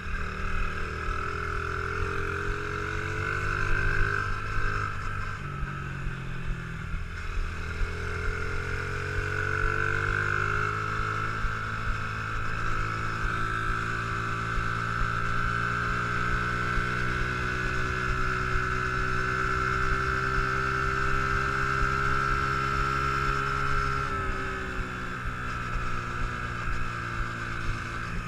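Honda XR50 mini dirt bike's 49cc four-stroke single-cylinder engine running as the bike is ridden. Its pitch dips and climbs again about five to eight seconds in, holds steady for a long stretch, then drops near the end.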